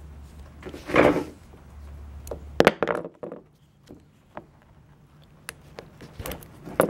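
Knocks and small clicks as a plastic plug and hand tools are handled on a workbench, with a sharp knock about two and a half seconds in and another near the end. A low hum in the background cuts off at the first sharp knock.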